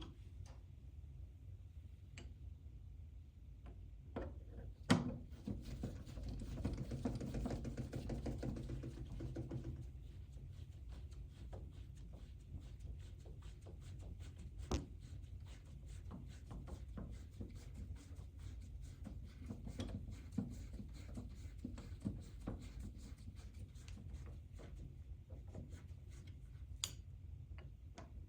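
Faint clicks and light scrapes of a hand screwdriver driving the interior door knob's mounting screws, over a low steady hum.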